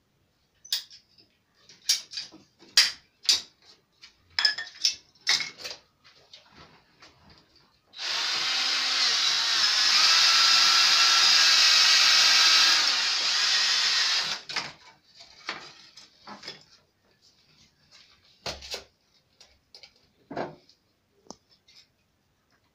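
Cordless drill running steadily for about six seconds in the middle, spinning a deburring tool in the end of a plastic water pipe. Before it comes a run of sharp clicks from the pipe cutter snipping the pipe, and after it more scattered clicks as the pipe and fitting are handled.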